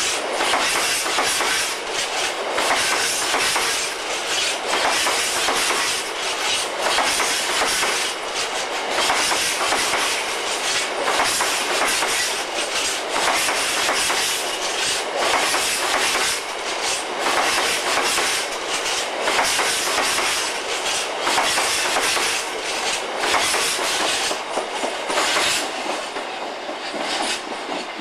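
Freight train of bogie hopper wagons passing close by, the wheels clattering over the rail joints in a rapid, repeating clickety-clack. The sound fades near the end as the last wagon goes by.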